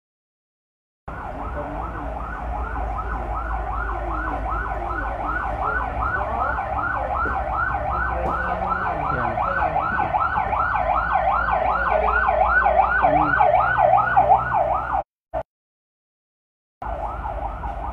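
Electronic siren in a fast yelp, about three rising sweeps a second, growing a little louder over a low hum. It starts about a second in and cuts off abruptly near the end.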